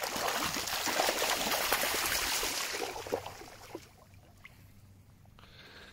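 Water trickling and splashing, which fades away about three to four seconds in.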